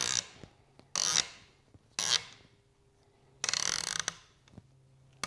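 A screw being hand-driven with a hex driver, threading into a plastic bracket ear and creaking and grinding in short bursts, one with each turn of the driver. There are about four bursts, the last and longest coming a little past the middle.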